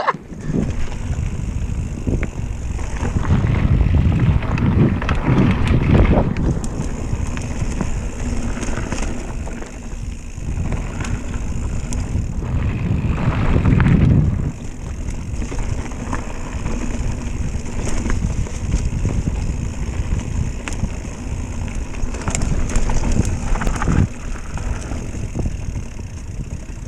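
Mountain bike ridden along a dirt trail: wind buffets the microphone while tyres rumble over the ground and the bike rattles and knocks over bumps. The sound swells and eases as the pace changes, loudest about fourteen seconds in.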